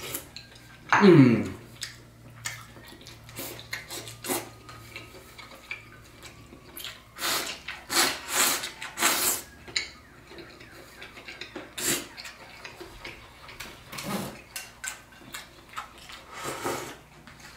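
Slurping and eating Cambodian noodle soup, with a porcelain spoon and chopsticks clicking against a ceramic bowl. A loud downward-sliding vocal sound comes about a second in. There are bursts of slurping in the middle and near the end as the bowl is tipped up to drink the broth.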